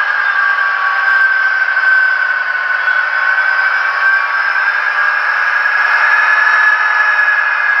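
Digital sound decoder in a model Class 66 diesel locomotive playing its sampled diesel engine sound, an EMD two-stroke V12, steadily through the model's small speaker. It sounds tinny, with no bass and a steady drone that wavers slightly in pitch.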